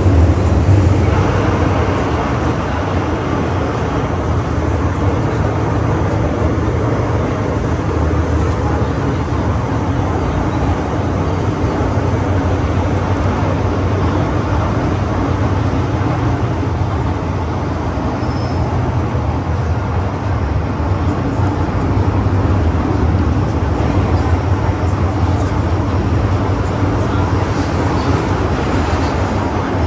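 MTR M-Train running, heard from on board: a steady low rumble with wheel and track noise.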